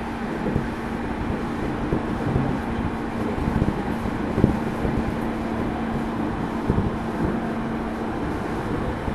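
Running noise inside a JR East 205 series 0 subseries electric train's motor car at speed: a steady rumble of wheels on rail with a constant low hum that dies away near the end, and a few short knocks of the wheels over rail joints.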